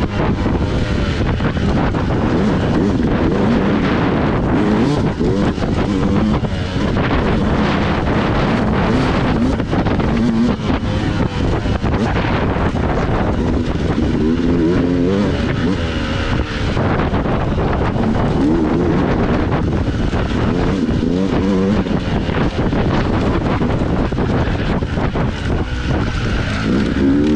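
Dirt bike engine running under load as it is ridden along a trail, its revs rising and falling over and over as the throttle is worked, over a constant rushing noise.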